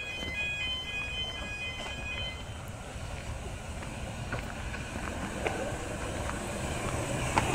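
Miniature 10¼-inch gauge steam train approaching, a low rumble of wheels on the track growing slowly louder, with a few sharp clicks.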